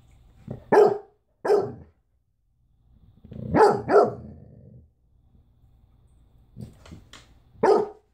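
A large Bernese mountain dog–German shepherd cross puppy barks a string of short, deep woofs, spaced a second or more apart, with a close pair about three and a half seconds in. It is barking at an unfamiliar haddock chew it is wary of.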